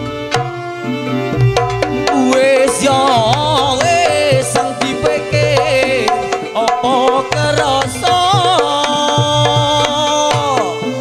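Live Javanese campursari music: kendang hand-drum strokes over a wavering, vibrato-laden melody line and recurring low bass notes.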